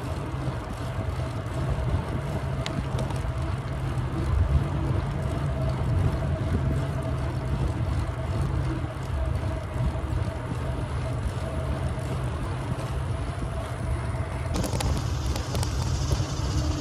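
Wind buffeting the microphone of a camera on a moving bicycle: a steady low rumble with a faint steady hum above it. Near the end a high hiss joins in.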